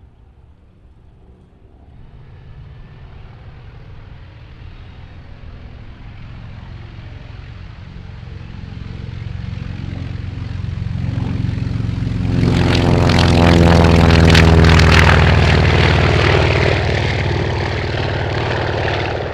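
Douglas SBD Dauntless's nine-cylinder radial engine at takeoff power as the plane runs down the runway and lifts off. The engine grows steadily louder from a couple of seconds in, is loudest about two-thirds of the way through as it passes close, and stops abruptly at the end.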